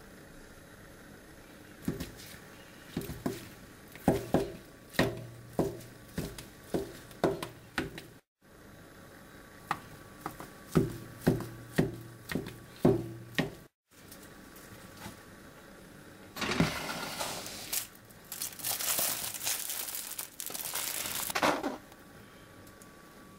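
Kitchen knife chopping a slab of set chicken-stock gelatin on a cutting board, blade knocking the board about twice a second in two runs. Near the end comes a longer rustling, scraping rush as the diced jelly is slid off the board into a bowl.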